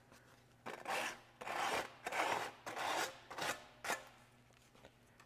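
80-grit sandpaper rubbed in about six short strokes along the edge of a new aftermarket drum brake shoe lining, followed by a small click. The sharp lining edge is being rounded off so it won't grab the drum and squeak when new.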